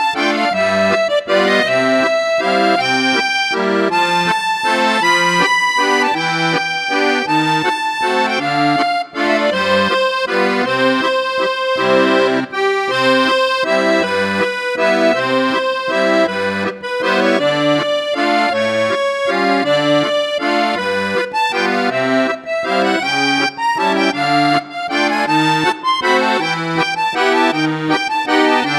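Accordion music: a melody over a regular bass-and-chord accompaniment that repeats throughout.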